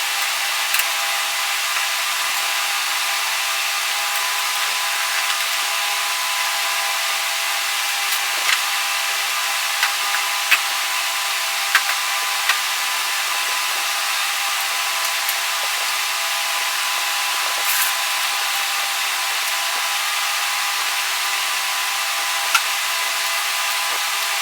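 A small power tool running steadily, with a few sharp clicks scattered through.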